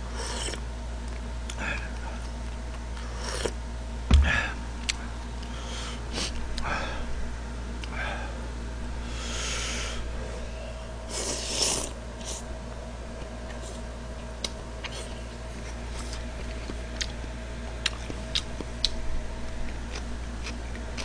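A person eating jjamppong (spicy seafood noodle soup) close to the microphone: slurping broth and noodles and chewing, with the longest, loudest slurps about nine to twelve seconds in. A sharp knock comes about four seconds in, and light clicks follow later on, over a steady low hum.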